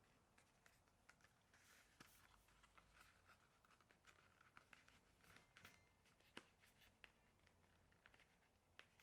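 Faint rustling and scattered light taps and clicks of packaging being handled, with a stretch of denser rustling about two seconds in.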